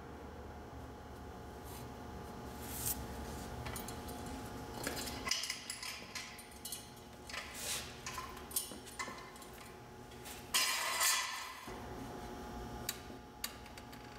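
Scattered metal clinks and knocks of steel jack stands and a hydraulic floor jack as the front of a car is lowered onto the stands, with a louder clattering knock lasting about a second some ten and a half seconds in.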